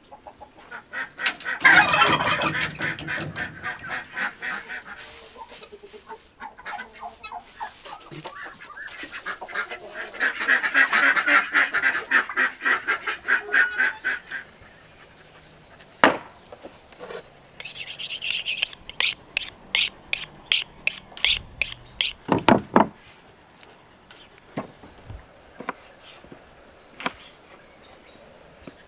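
Domestic fowl in a pen calling in two long, loud stretches of rapid honking and cackling. After that comes a run of about a dozen quick, even, high-pitched strokes, about three a second, of a knife being drawn along a sharpening steel. It ends with a knock on the wooden cutting board and a few light knife taps.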